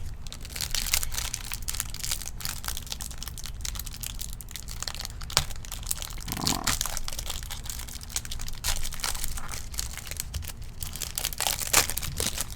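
Crinkling and tearing of a foil trading-card pack wrapper being ripped open and handled, a dense run of crackles and rustles.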